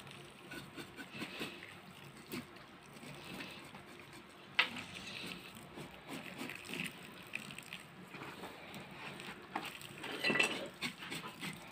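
Hot water poured from a plastic jug onto a pig's hide to scald it, trickling and splashing. A sharp click comes about four and a half seconds in, and there are louder splashes and knocks near the end.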